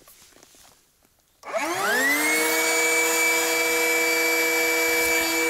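Two electric inflatable-boat pumps, a Bravo BST 800 and a Bravo BTP 12 Digital, switched on together about a second and a half in. They spin up with a rising whine, then run at a steady pitch, inflating the boat's tubes on their first, high-volume turbine stage.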